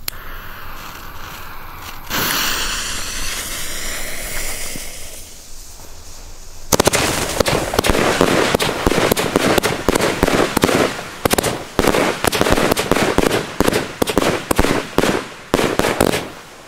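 A steady hiss for several seconds. Then, about seven seconds in, a 'Weissblinker Dahlien' firework battery fires: a dense run of rapid launch thuds and bursting, crackling stars for about ten seconds, thinning out near the end.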